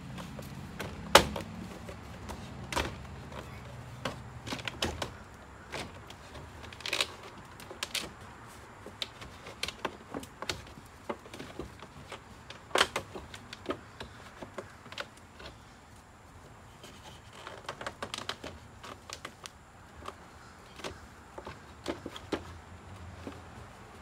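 Irregular clicks, taps and knocks from electrical cable being pushed and worked up through a drilled hole and behind vinyl siding, with a sharp knock about a second in.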